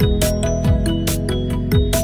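Background music: an electronic track with a deep kick drum that drops in pitch on the beat, sharp ticks, and short synth and bell-like notes over it.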